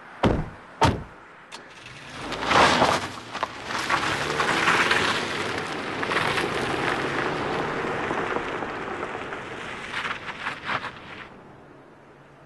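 Two heavy thuds about half a second apart, then a vehicle running, its noise swelling about two seconds in, holding, and fading away near the end.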